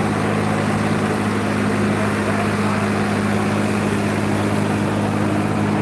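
Diesel engines of two tractors, a Sonalika and a Farmtrac, running steadily at low revs with an even hum and no change in pitch.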